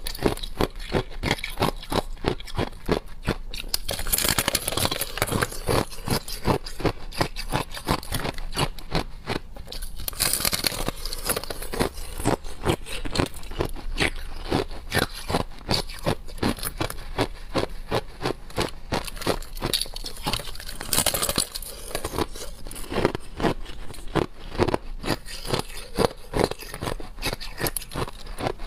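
Close-up crunching and chewing of refrozen shaved ice, with rapid crisp crunches several times a second and a few louder, longer crackling spells.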